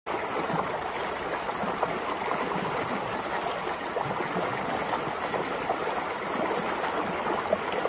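Shallow rocky stream rushing and splashing steadily over stones.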